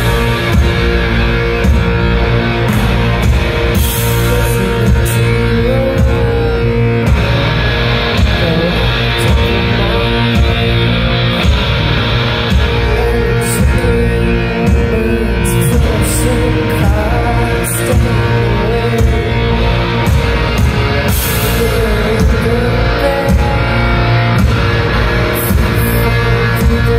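Rock band playing live: loud electric guitars over bass and drums, a dense, steady wall of sound with cymbal crashes now and then.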